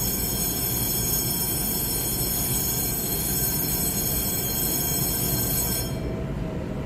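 An EMU3000 electric multiple unit standing at an underground platform, with a steady low rumble and a set of steady high-pitched electrical whines from its running equipment. The whines cut off suddenly about six seconds in.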